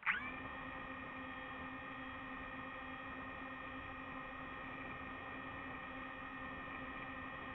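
DJI FPV drone's motors and propellers spinning up and idling on the ground after arming. It starts suddenly with a brief rise in pitch, then holds as a steady hum of several tones.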